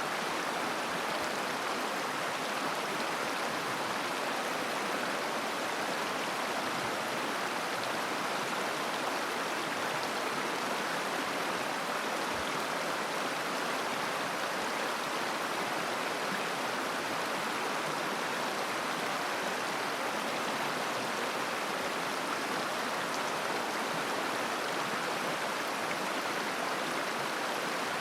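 River water flowing and babbling over stones, a steady rushing with no breaks or changes.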